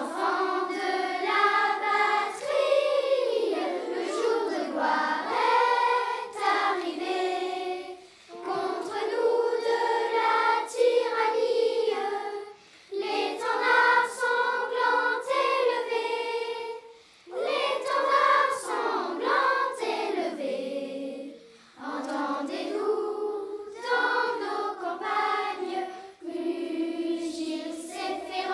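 A children's choir singing, unaccompanied, in phrases of a few seconds with short breaks between them.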